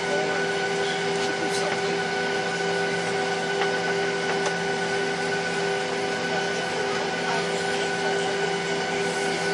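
Steady cabin noise inside a Boeing 737-900ER taxiing: its idling CFM56-7B engines give a whine of several steady tones over an even rushing hiss.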